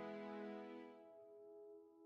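Closing background music fading out: a sustained chord of held notes dying away, the lower notes dropping out about a second in.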